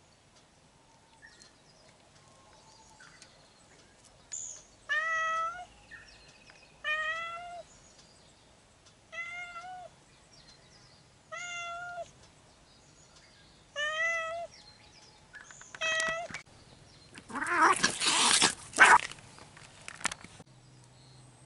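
A cat meowing six times, drawn-out calls about two seconds apart. Near the end comes about three seconds of loud, harsh noise, the loudest part.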